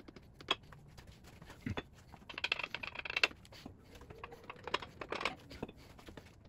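Metal clicks, clinks and scrapes of a Ford 4.6-litre DOHC V8's loosened main bearing caps being worked free of the block around the crankshaft. There are scattered knocks, then a denser run of scraping and rattling in the middle, with the loudest knock about three and a half seconds in.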